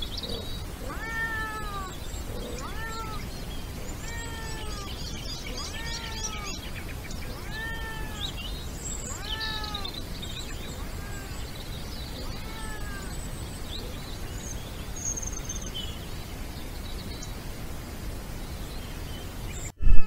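European wildcat (Felis silvestris) meowing in the breeding season: a series of repeated calls, about one a second, each rising then falling in pitch. The calls grow fainter and stop about 13 seconds in. Music cuts in at the very end.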